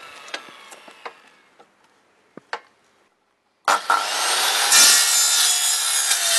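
A fading whine with a few scattered clicks dies away to near silence. About two-thirds of the way in, a Makita circular saw starts and cuts into an aluminium security door, a loud, high-pitched screech that runs on.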